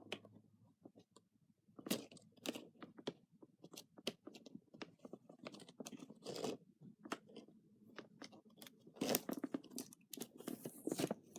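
Toy packaging being handled and pried open by hand: faint, irregular crackles, crunches and scrapes, busiest about nine seconds in.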